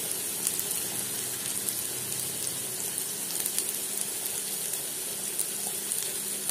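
Masala-coated pomfret pieces sizzling steadily in shallow oil on a nonstick tawa, with many fine crackles.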